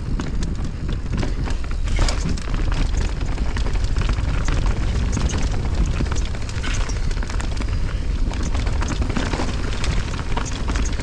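Mountain bike descending a rocky downhill trail at speed: wind buffets the microphone with a constant low rumble, while the tyres and bike clatter over the rocks in many quick, sharp knocks.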